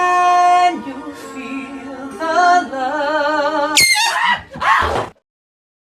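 Music with a sung vocal holding long notes, some with vibrato. Just before four seconds in, a sharp falling sweep and a few noisy bursts come in, then the sound cuts off to silence about five seconds in.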